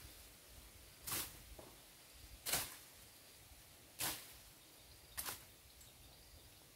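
A hand tool slashing through grass and weeds: four swishing strokes, about a second and a half apart.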